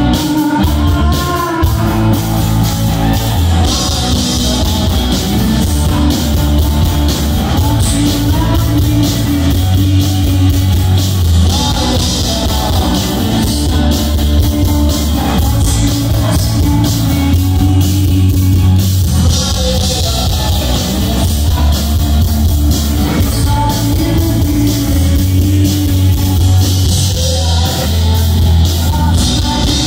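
Indie rock band playing live on electric guitar, bass guitar and drums, heard loud from within the audience.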